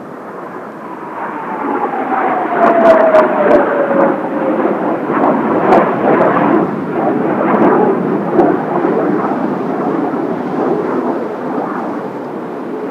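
Kawasaki T-4 jet trainers flying past: a loud jet roar builds, with a whine that falls steadily in pitch as they pass, then a long rumble that slowly fades. A few sharp knocks cut through the roar around the loudest part.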